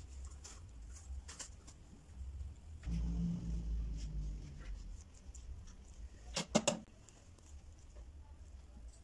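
Faint rustles of hair being combed and braided over a low steady hum, with a louder low rumble swelling for a couple of seconds about three seconds in. About six and a half seconds in, three quick sharp clicks, the loudest sounds here.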